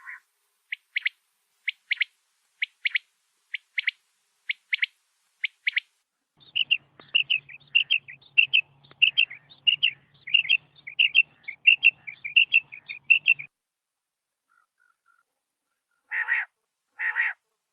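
Rain quail calling: a short double note repeated about once a second, then a fast run of chirps for about seven seconds, then two harsher calls near the end.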